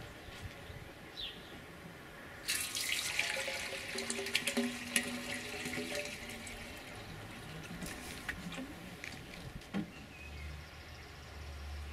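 Water pouring from a plastic watering can into a tall square steel quench tank, splashing inside the hollow tube. It starts suddenly about two and a half seconds in, is loudest for about four seconds, then tapers off. The tank is being filled to check that its seams are watertight.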